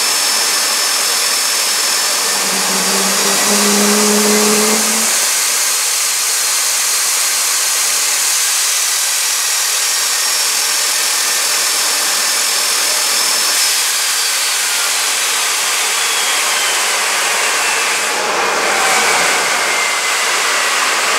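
Fairchild J44 turbojet running with a steady roar and a high turbine whine. About two-thirds of the way through, the whine glides steadily down in pitch as the engine slows. A short low tone sounds about three seconds in.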